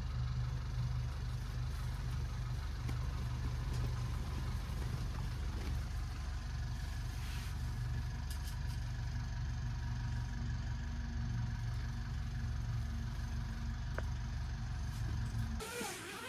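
A steady low motor hum that cuts off suddenly near the end.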